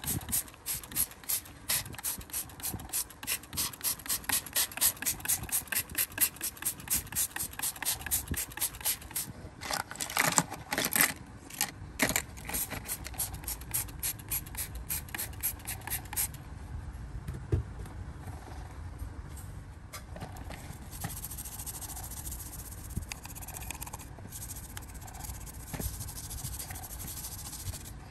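An abrasive worked back and forth by hand over a small part, in quick scraping strokes about three or four a second. After about sixteen seconds the strokes turn softer and steadier.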